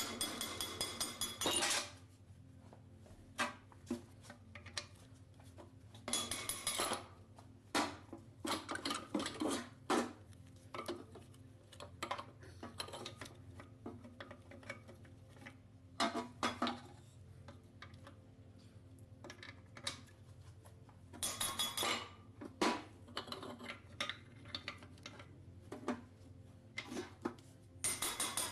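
Metal tools and engine parts clinking and clattering in irregular bursts of short clanks and clicks, as parts of a ZMZ-513 engine are handled during disassembly.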